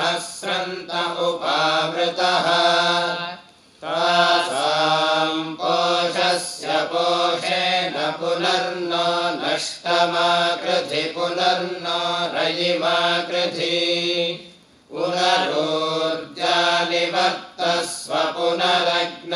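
A group of male voices chanting Vedic mantras together in a steady recitation tone, in long phrases broken twice by a short pause for breath.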